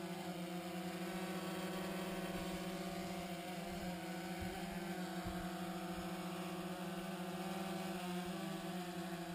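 DJI Phantom 3 Advanced quadcopter flying low, its four propellers giving a steady buzzing hum whose pitch wavers slightly as the drone shifts position.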